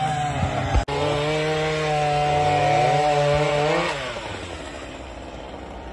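Chainsaw running at high revs, its pitch wavering, then the throttle is released about four seconds in and the engine note drops away.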